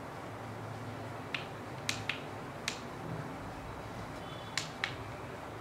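Six sharp plastic clicks spread over a few seconds, from buttons being pressed on a Digitek DFL-044 camera flash and the unit being handled, with a faint brief high tone just before the last two. A low steady hum runs under them.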